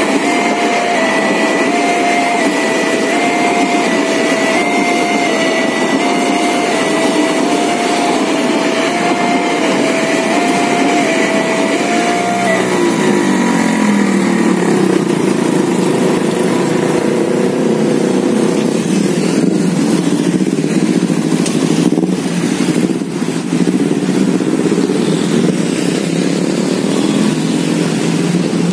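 Electronic level-crossing alarm sounding a two-note tone that alternates about once a second, over the rumble of a passing electric commuter train. About twelve seconds in the alarm cuts off, and motorcycles and cars rev up and drive across the tracks.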